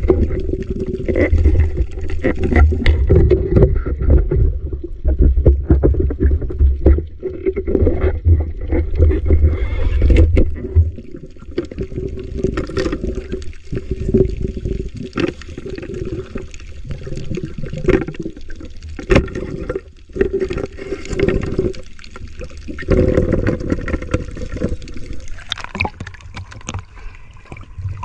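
Muffled water sloshing and gurgling around a camera moved underwater while swimming, with a strong low rumble of water movement for the first third and scattered knocks throughout.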